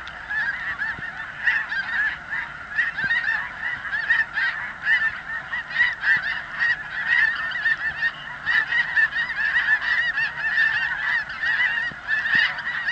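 A large flock of snow geese calling all at once: a steady din of many overlapping honks with no break.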